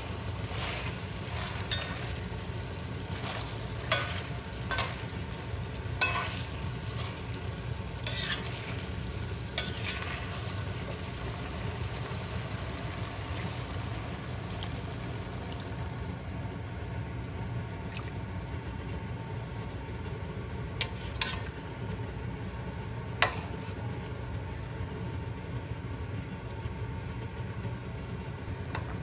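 Food sizzling as it sautés in a pot while being stirred, with sharp clinks of the utensil against the pot. The clinks come often over the first ten seconds and only now and then after that.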